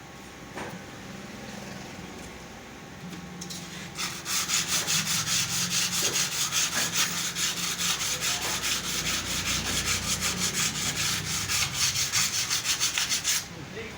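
Rapid, even back-and-forth scraping strokes, about five a second, start about four seconds in and stop suddenly near the end. A faint low hum sits under the first few seconds.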